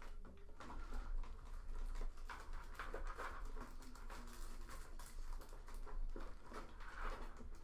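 Faint, irregular clicking and light tapping of small hard parts being handled and rummaged through, as when searching a box of spare computer parts for a RAM stick.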